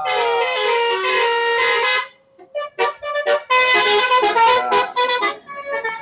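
A bus's telolet basuri multi-tone musical horn playing a tune. A run of loud pitched notes breaks off about two seconds in, then comes back as quick short toots and longer held notes.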